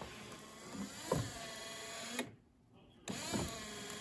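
1987 Buick Regal's windshield wiper motor and linkage running the blades through their sweeps: a motor whine that sags and recovers in pitch, with a knock partway through each sweep. It stops about two seconds in and starts again about a second later.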